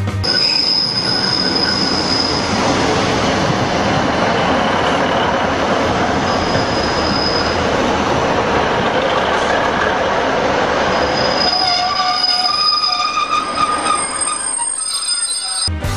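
A train running on the rails, a loud steady rush of noise with wheels squealing in thin high tones that come and go. It cuts off suddenly near the end.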